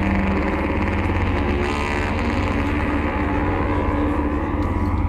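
A live band's droning instrumental passage, with a Moog synthesizer holding steady low tones under a dense, unchanging wash of sound.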